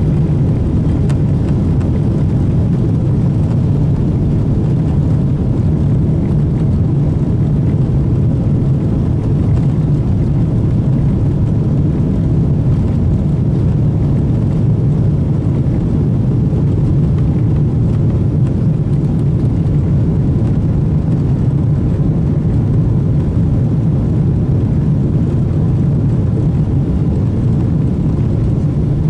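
Steady cabin noise of a Boeing 777-200 climbing after takeoff: its jet engines and the air rushing past make an even, loud, low rumble.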